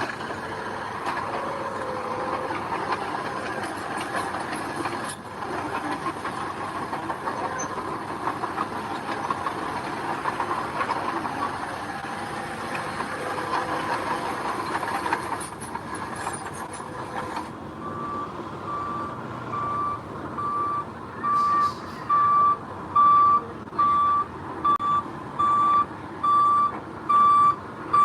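Heavy diesel earthmoving machinery running, then about two-thirds of the way in a reversing alarm starts beeping, about three beeps every two seconds, over the engine and growing louder.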